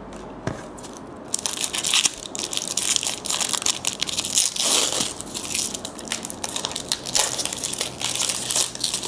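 Trading-card pack wrapper crinkling as it is handled and opened, starting about a second in.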